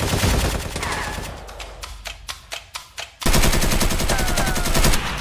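Machine-gun fire sound effects: rapid bursts of automatic fire, a few single shots, then a longer, louder unbroken burst from about three seconds in, with a couple of brief falling whizzes over the shooting.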